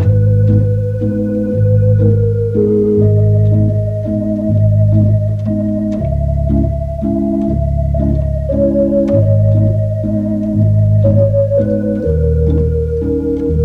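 Slow organ music: held chords over bass notes that change every second or so.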